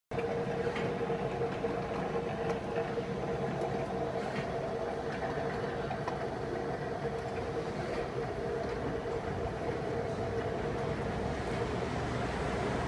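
Neuberger MN-25F rotary tablet press running steadily: a constant mechanical hum with a steady mid-pitched tone and faint ticks now and then.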